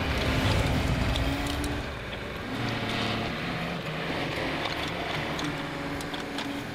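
Mahindra compact tractor's diesel engine running steadily as the tractor drives off, easing a little about two seconds in as it pulls away, with scattered light clicks and rattles.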